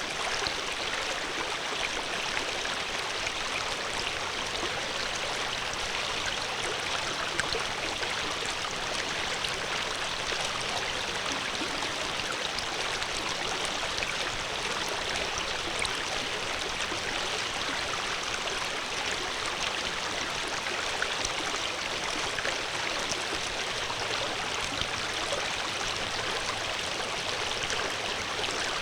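Water flowing steadily in a stream, an even rushing and splashing with small bright droplet ticks.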